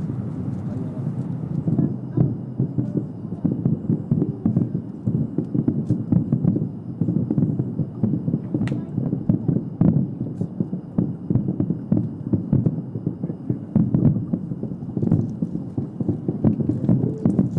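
Fireworks bursting in quick succession, heard about 5 km off as a dense, rolling run of dull booms with a few sharper cracks.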